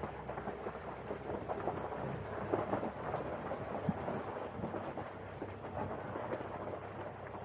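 Jeep Wrangler Rubicon rolling along a gravel track: tyres crunching and popping over loose stones above a low, steady rumble of the vehicle, picked up by a camera on the bonnet.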